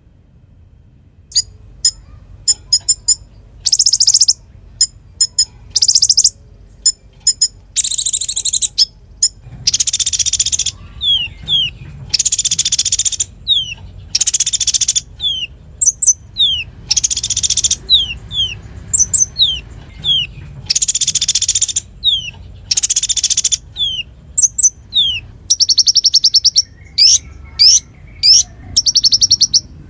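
Kolibri ninja (Van Hasselt's sunbird) singing in full, fast song, starting about a second in. It runs high, rapid trills of about a second each, alternating with short, falling whistled notes.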